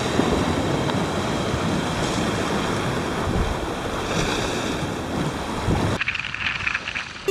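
Sea waves breaking and washing against a rocky shore, with wind buffeting the microphone. About six seconds in, the sound cuts abruptly to a quieter wash of water.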